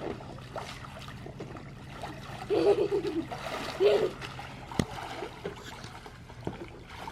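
Water splashing and sloshing in a swimming pool as children play in it, with two short children's shouts about two and a half and four seconds in.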